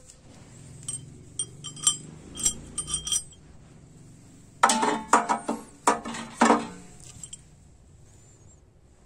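Metal parts clinking against each other with a bright ringing, several light taps over the first few seconds. Then a louder burst of heavier metal clanking and clattering for about two seconds in the middle.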